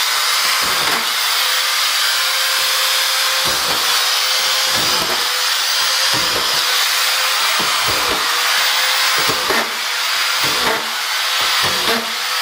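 Corded auto-feed screw gun running with a steady high whine while screws are driven in quick succession into cement backer board, a short thud with each screw at roughly one a second.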